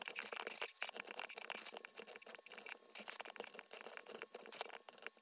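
Kitchen knife dicing venison steaks on a wooden cutting board: faint, irregular scraping and tapping as the blade cuts through the meat and meets the board.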